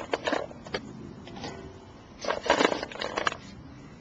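Raw vegetables being handled and set into a cast iron Dutch oven: a string of short, irregular knocks and scrapes, busiest a little past halfway.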